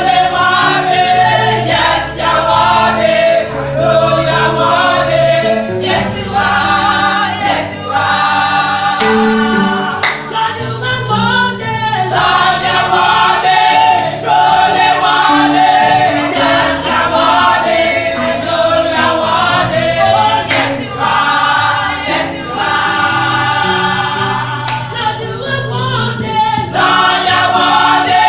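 Church choir singing a gospel song, with voices and music carrying on throughout.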